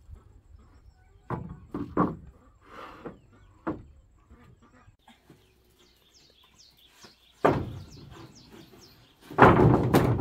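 Wooden floor boards being handled: a few sharp knocks early on as boards bump together, then louder clattering and scraping about seven and a half seconds in and again near the end as boards are slid and dropped onto a stack.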